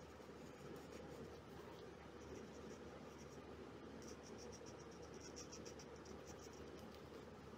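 Faint, quick scratchy strokes of a paintbrush's bristles dabbing and brushing on paper, starting about two seconds in and thinning out near the end, over a steady low room hum.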